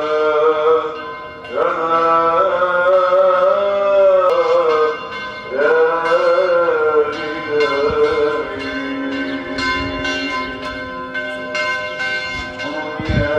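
A voice singing in long, wavering notes, then church bells ringing in repeated strikes from about halfway through, the bells carrying on as the singing fades.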